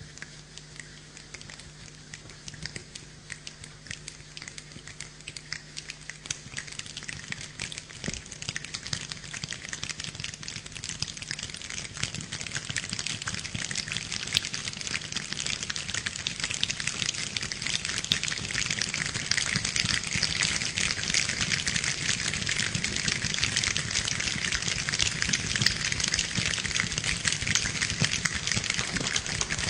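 Rain imitated with hands: a dense patter of many small hand clicks and slaps that grows steadily louder, like rain building from a drizzle to a downpour.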